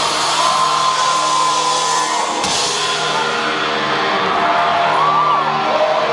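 Loud live rock concert sound, a dense band-and-crowd wash, with audience members letting out long held whoops and cheers, one early on and several more near the end.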